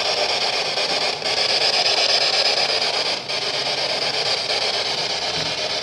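Ghost box (spirit box) radio scanner sweeping through the band: a loud, steady rush of static, with brief dropouts about a second in and again about three seconds in.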